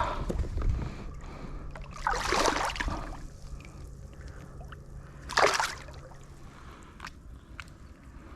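Water sloshing and splashing as a redfish is released from a kayak back into shallow water: a longer splash about two seconds in and a shorter, sharp splash a few seconds later.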